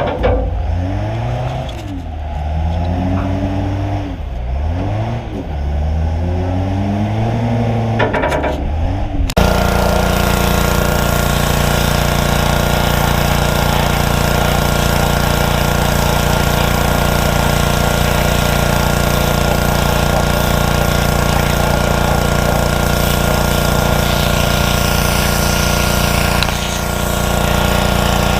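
A wheel loader's engine revving up and down again and again as the machine works. About nine seconds in, the sound switches suddenly to a louder, steady engine running at constant high speed.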